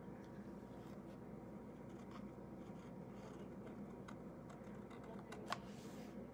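Faint scratching and ticking of a paint pen tip drawing an outline on a painted door hanger, over a low steady hum, with one sharp click about five and a half seconds in.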